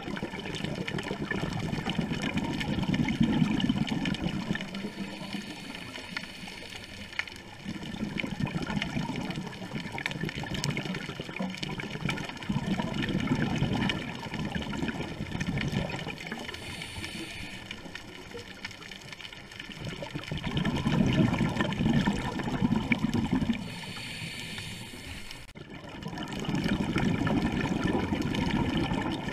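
Scuba diver breathing through a regulator underwater: about five bursts of exhaled bubbles rumbling past the camera a few seconds apart, with quieter stretches between.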